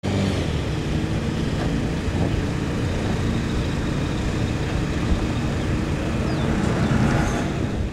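Open-wheel formula race car's engine running steadily as the car rolls forward off the autocross start.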